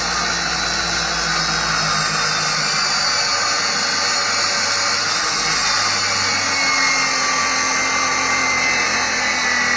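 Handheld circular saw running as it cuts across a 2.5-inch-thick wooden boat frame timber. It is a steady, loud whine, with the pitch rising slightly near the end.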